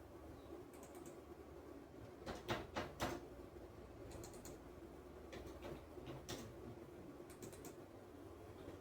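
Computer keyboard typing in short scattered clusters of key clicks, over a faint steady hum from the running BLDC refrigerator compressor motor.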